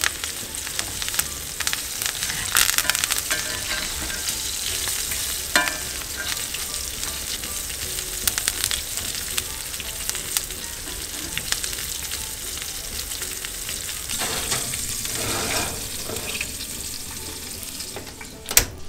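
A thick bone-in ribeye sizzling and crackling steadily in butter in a cast iron skillet as it is basted with a spoon. One sharp click near the end.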